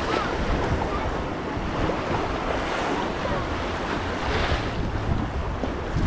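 Sea surf washing on a beach, with wind buffeting the microphone in a low rumble.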